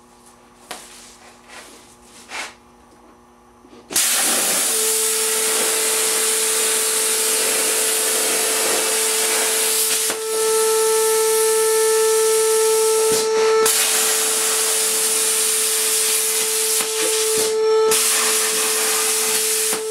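Hypertherm Powermax 1000 plasma cutter cutting sheet metal: a loud, steady hiss of air and arc with a steady whine, starting abruptly about four seconds in and breaking off briefly three times.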